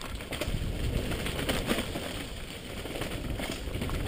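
Mountain bike riding fast down a dirt singletrack, heard from a helmet-mounted camera: tyres rolling over rough ground and the bike rattling over bumps in a dense run of clicks, with wind rumbling on the microphone.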